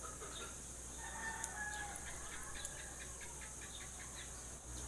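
Faint background bird calls, likely domestic fowl: one drawn-out call about a second in, then a quick run of short calls.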